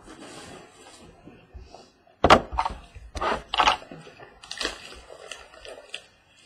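Cardboard trading-card boxes and their plastic wrapping handled on a wooden table: a soft rustle, then a run of sharp knocks and taps as boxes are picked up and set down, the loudest about two seconds in.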